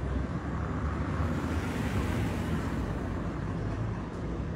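Street traffic noise: a steady hum of passing road vehicles, a little louder between about one and three seconds in.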